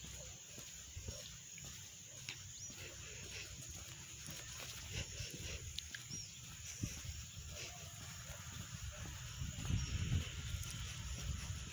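Quiet outdoor ambience: a steady high hiss with a few short, high chirps, and low wind rumble on the microphone that grows stronger near the end.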